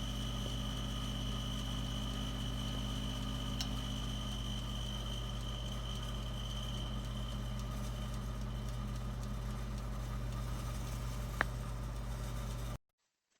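Black+Decker convection toaster oven running: a steady low hum with a faint high whine that fades out about halfway through, and two light clicks.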